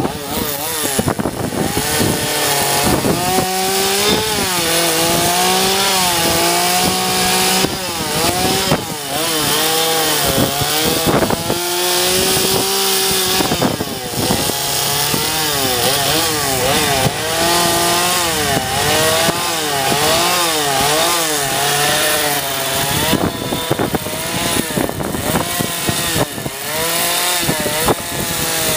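Gasoline chainsaw carving a wooden log, its engine pitch rising and falling over and over as the throttle is opened and eased off between cuts.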